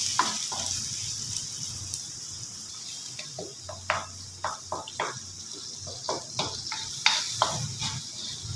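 Onion-tomato masala frying in oil in a pan, with a hiss of sizzling that fades over the first few seconds. A wooden spoon stirs it with irregular scrapes and knocks against the pan, more often in the second half.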